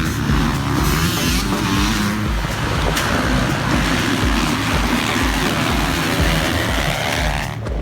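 Motocross bikes racing, engines revving hard. The sound cuts briefly near the end.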